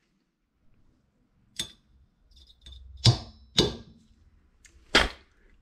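Wrench tightening the cylinder-head nuts of a moped engine: four sharp metallic clicks, the second and fourth loudest, with faint ticking between them.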